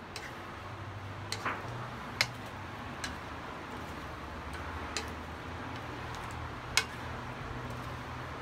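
Stir-frying rice noodles with bean sprouts and chives in a nonstick wok: a steady sizzle with sharp, irregular clicks of wooden and plastic spatulas knocking against the pan, the loudest a little over two seconds in and again near the end.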